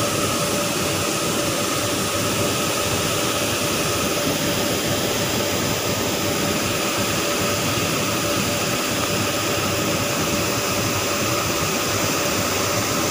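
Steady rushing mechanical noise from a train, with a faint steady hum in it and no change in level.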